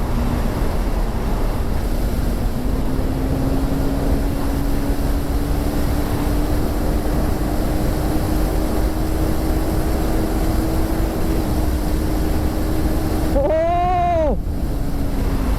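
KTM 390 Duke's single-cylinder engine, stock exhaust, pulling steadily under way, its note climbing slowly as the bike gains speed, then holding. Heavy wind rush on the microphone lies over it. About thirteen seconds in there is a brief high shout that rises and falls.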